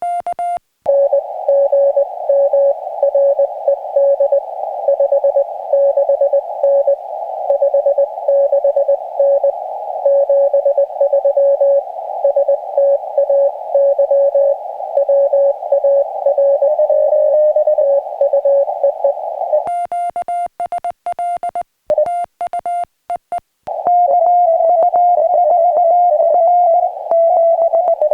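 Morse code (CW) from a portable ham radio transceiver's audio: short and long tones keyed on and off inside a narrow band of receiver hiss. About 20 seconds in the hiss drops out and a slightly higher keyed sidetone sounds for a few seconds, then the hiss and keyed tones return.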